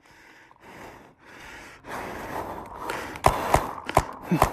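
A person breathing hard close to the microphone, the breaths coming as short rushes of air that grow louder. A few sharp pops come in the last second and a half.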